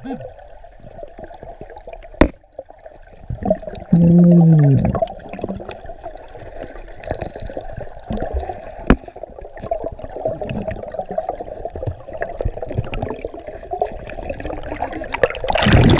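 River water heard through an underwater camera: a steady wash with scattered clicks and knocks of rocks and gravel as a hand digs among the stones. About four seconds in there is a loud, low, pitched drone lasting just under a second that drops in pitch as it ends. Near the end comes a loud rushing splash as the camera breaks the surface.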